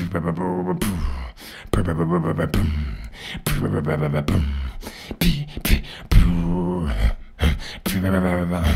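A man beatboxing into a microphone: a low hummed bass line broken up by sharp kick, click and snare sounds made with the mouth.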